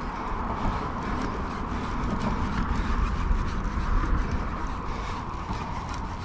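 Wind rumbling on the microphone over a steady whir and fine rapid clicking from a fishing reel being cranked against a hooked sturgeon.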